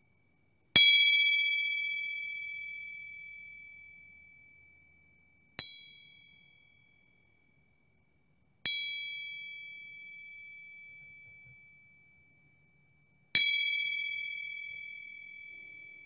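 A small Tibetan bell struck four times, a few seconds apart. Each strike rings out in one clear high tone with fainter upper overtones and fades slowly; the second strike is lighter and dies away quickly.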